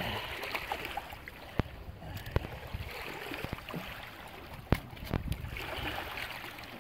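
Wind buffeting the microphone over lake water lapping on a rocky shore, with several sharp clicks.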